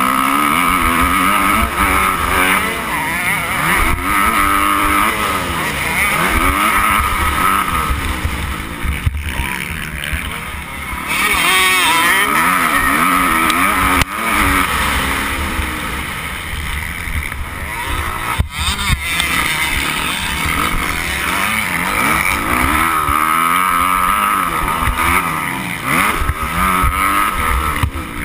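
Motocross bike engine revving hard, its pitch rising and falling over and over as the rider works the throttle and shifts, with wind buffeting the bike-mounted camera's microphone.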